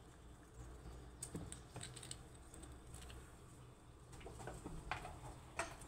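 Light, irregular clicks and taps of a Eurasian red squirrel's claws and a walnut shell on a plastic windowsill as the squirrel takes the nut and scampers off, with the sharpest taps near the end.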